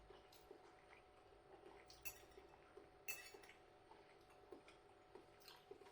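Faint, sparse clinks of cutlery against a dish: a few brief taps spread over several seconds, the clearest about two and three seconds in, over near-silent room tone.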